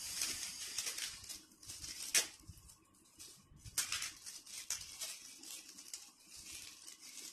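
Plastic packaging crinkling and rustling as a wrapped tripod is unwrapped by hand, with a sharp crackle about two seconds in.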